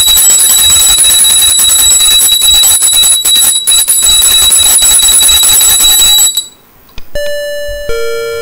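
Altar bell rung continuously at the elevation of the host, signalling the consecration. It is a fast, even ringing that cuts off abruptly about six seconds in. About a second later a keyboard begins playing slow held notes.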